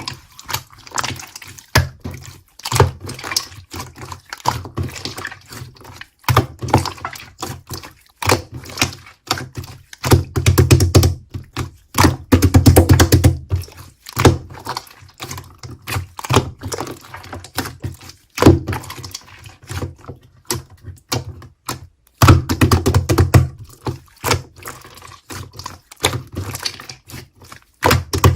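Slime being squeezed, pressed and stretched by hand close to the microphone: irregular sticky pops and clicks, with several runs of quick crackling pops.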